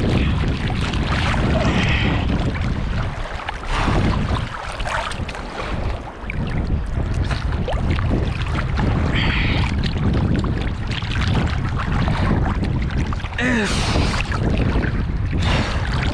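Swimmer's arm strokes splashing and sloshing through choppy sea water right at the microphone, with wind buffeting it.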